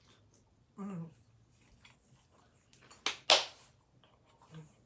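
A woman eating: a short hummed "mm" about a second in, then a loud breathy burst of noise a little after three seconds.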